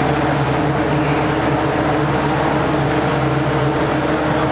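A large engine running steadily: a loud, even drone with a low hum that does not change.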